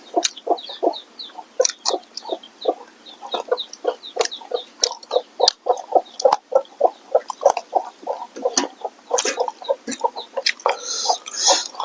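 Close-miked chewing and mouth sounds of someone eating smoked pork with curry: a steady run of short wet smacks and crunches, several a second, with sharp clicks among them.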